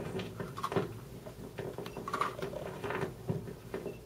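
Handling noise of a clip-on microphone being fastened to clothing: rustling with irregular clicks and knocks, the sharpest about one, two and three seconds in.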